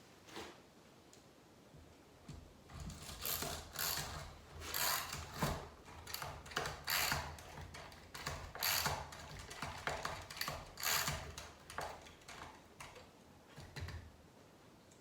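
A tool's ratchet clicking in repeated strokes as the wooden chops of a saw sharpening vise are tightened down on a glue-up. It starts about three seconds in and stops near the end.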